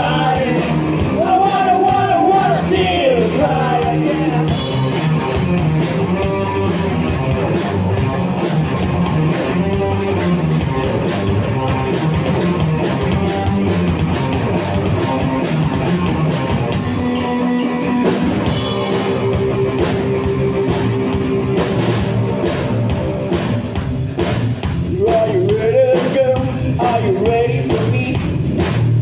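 Live rock band playing a song on electric guitar, electric bass and drum kit. Lead vocals are sung in the first few seconds and again near the end, with an instrumental stretch between.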